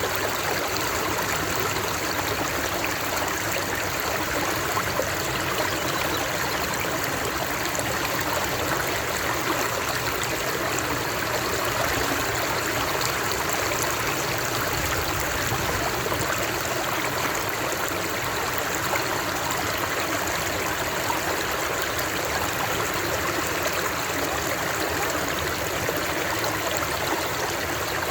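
Flowing water of a stream, a steady even rush with trickling.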